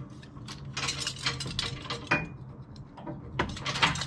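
Steel safety chains and their hooks clinking and rattling against the steel trailer hitch as they are handled and hooked on, in uneven runs of metal jangles with louder clusters about a second in and near the end.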